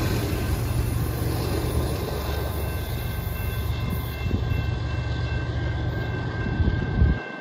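Diesel freight locomotive, a GE ES44AC running as the rear distributed-power unit of a long grain train, rumbling as it moves away, with a few steady high whining tones over the low rumble. The sound eases off slowly and drops away abruptly near the end.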